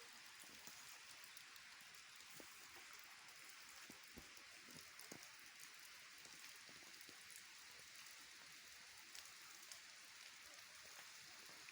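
Steady, faint rain falling, an even hiss with scattered individual drops ticking and pattering on a surface.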